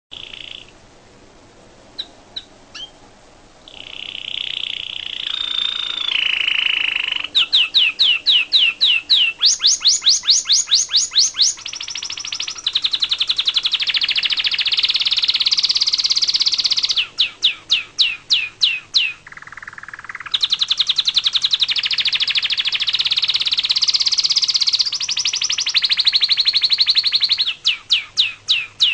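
Pet songbirds singing: brief chirps, then long rapid trills alternating with runs of quick downward-sweeping whistled notes, about three a second.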